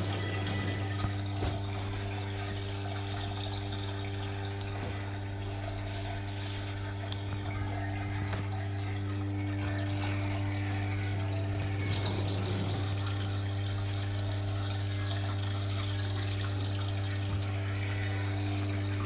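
LG washing machine in test mode with water running through it, under a steady electrical hum.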